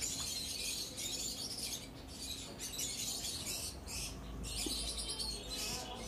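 A colony of lovebirds chattering and chirping continuously in high-pitched calls, with a few brief lulls.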